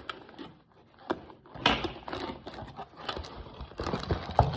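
Toy packaging being handled by hand: a couple of sharp clicks, then rustling with scattered light knocks as parts are pulled from the box.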